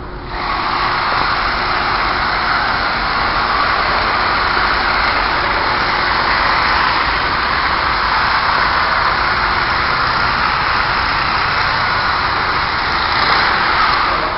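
Loud, steady rushing noise from workshop machinery, starting suddenly and holding even throughout.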